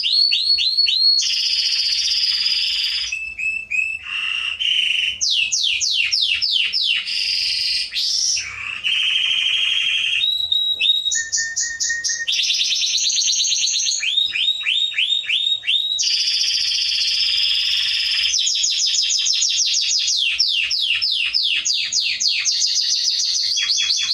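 Domestic canary singing a long, unbroken song of trills. Each phrase is a run of one note repeated, some fast and buzzy, others slower at about five notes a second, and the bird switches to a new trill every second or two.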